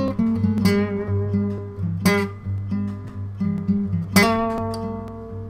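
Background music on acoustic guitar: strummed chords with notes ringing on, the last chord struck about four seconds in and left to ring out and fade.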